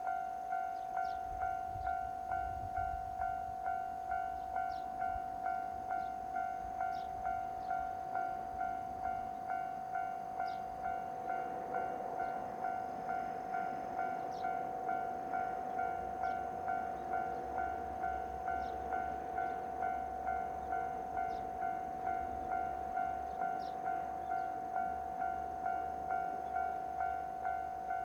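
Japanese level-crossing warning bell ringing steadily, an even, rapidly repeating electronic ding. From about halfway, a KiHa 120 diesel railcar's engine and wheel rumble rises beneath it.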